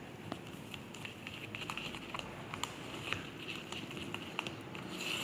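Slime mixture of glue with styrofoam beads being stirred in a container, giving irregular small clicks and ticks as the utensil works through it.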